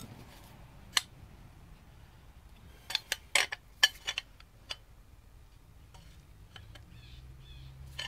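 Metal parts of an antique Singer Model 12 sewing machine clicking and clinking as they are worked loose by hand: one click about a second in, a cluster of sharper clinks around three to four seconds, then a few faint ticks.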